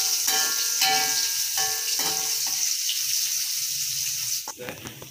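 Garlic, shallots and red chillies sizzling in hot oil in a metal wok, with a metal spatula scraping and ringing against the wok as they are stirred. Near the end a couple of knocks are heard and the sizzling drops away suddenly.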